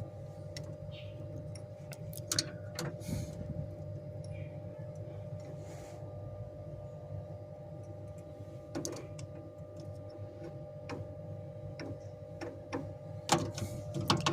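Scattered small clicks and taps of a screwdriver and wires being worked loose from the terminals of a three-phase power contactor, over a steady electrical hum; the clicks come thicker near the end.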